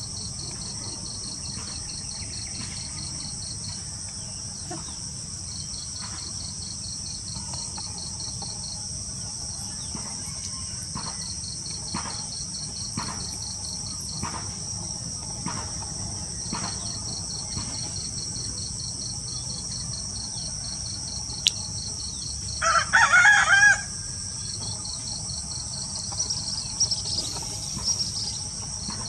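Steady chorus of crickets and other insects, with a rooster crowing once about three-quarters of the way through, the loudest sound.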